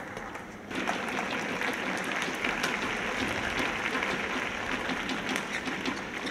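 Spectators in a sports hall applauding after a point is won, starting suddenly under a second in and going on steadily.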